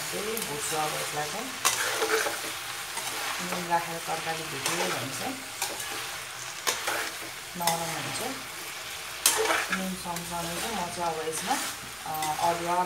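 Mixed vegetables sizzling as they fry in an aluminium kadai, dry-fried in oil without water, while a metal spatula stirs them with irregular scrapes and knocks against the pan every second or two.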